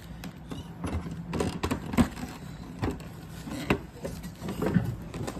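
Close handling noise: a tissue rubbing against a young kitten's rear, with hands moving near the microphone and a few sharp knocks, the loudest about two seconds in.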